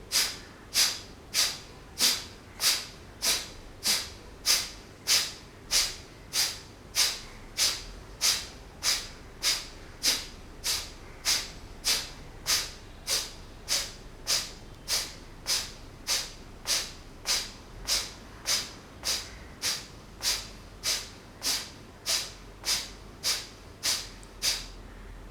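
A round of kapalabhati pranayama: a steady train of short, forceful exhalations puffed out through the nostrils, a little under two a second, stopping about a second before the end.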